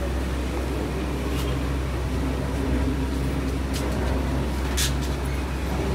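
Steady low hum of background noise, with a few faint ticks and a short hiss near the end.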